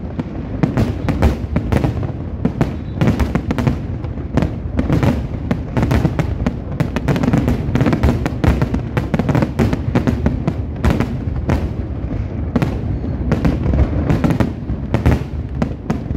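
Fireworks finale: a dense, continuous barrage of aerial shell bursts, several bangs a second, over a constant deep rumble.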